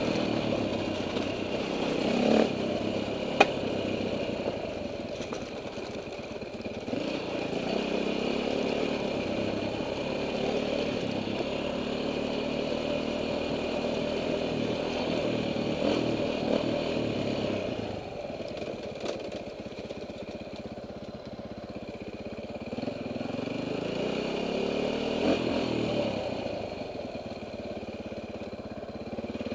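KTM enduro dirt bike engine running on a trail ride, close up from the helmet, its revs rising and falling repeatedly. A short knock and then a sharp click stand out a couple of seconds in.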